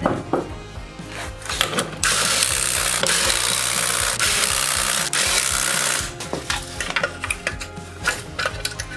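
Cordless Milwaukee Fuel impact wrench hammering lug nuts tight on a golf cart wheel, a continuous rattle of about four seconds starting about two seconds in, with a few brief breaks. Clicks of the nuts and tool being handled come before and after it.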